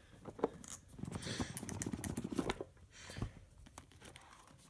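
Cardboard Apple Watch packaging being opened by hand: the lid slides off the box with a steady rustling and scraping of cardboard, followed by a few light taps and one sharp knock about three seconds in.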